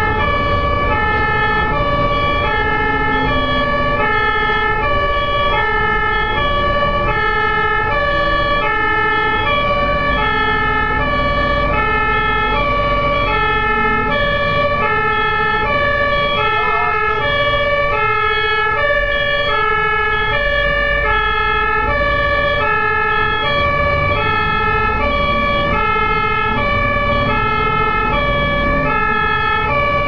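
German two-tone emergency-vehicle siren (Martinshorn) alternating steadily between a high and a low note, over the low rumble of the vehicle's engine and tyres on the road.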